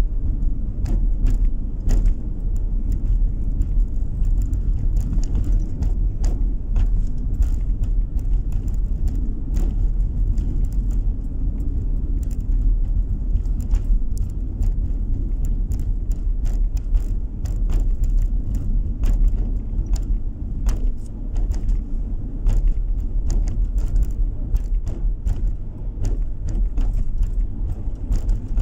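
Car cabin road noise while driving on a cracked asphalt road: a steady low rumble of tyres and engine, with frequent short clicks and rattles throughout.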